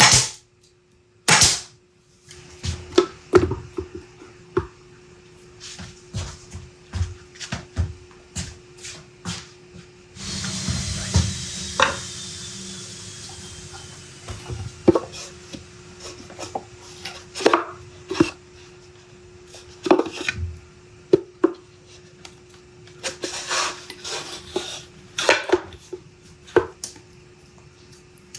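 Nail gun firing twice into a plywood box, sharp snaps near the start and about a second and a half later, followed by scattered knocks and clatter of the plywood box parts being handled on a workbench, over a steady low hum. About ten seconds in a few seconds of hiss rise and fade.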